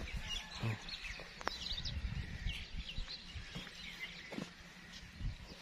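Birds chirping, many short scattered calls, over steady outdoor background noise, with soft low thuds throughout.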